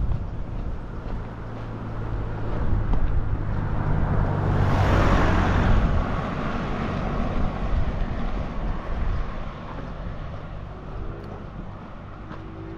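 A car passing by: engine and tyre noise swells to its loudest about halfway through, then fades away.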